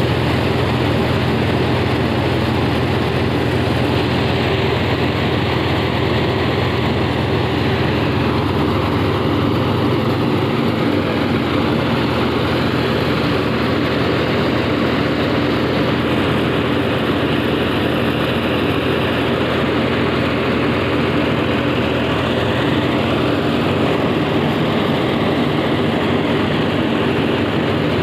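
Mahindra 265 DI tractor's three-cylinder diesel engine running steadily while it drives a grain thresher, the engine's even drone mixed with the thresher's continuous mechanical whirr and rattle.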